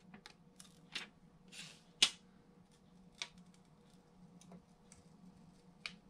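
Faint handling sounds of a thin black adhesive film being peeled back inside an open laptop: soft rustles and a few small clicks, the sharpest about two seconds in.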